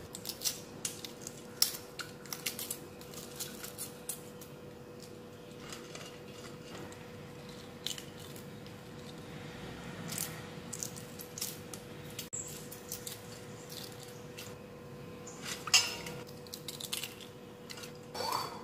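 Hard-boiled chicken egg shells being cracked and peeled by hand over a steel bowl of water: scattered small clicks and crackles of shell, a few louder near the end, over a faint steady hum.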